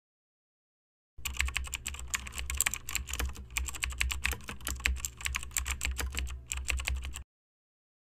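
Rapid computer keyboard typing: a dense run of key clicks over a low steady hum, starting about a second in and stopping abruptly about a second before the end.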